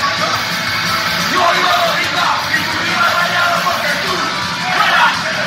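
Punk rock band playing live, electric guitars and drums with the singer shouting the lyrics into the microphone.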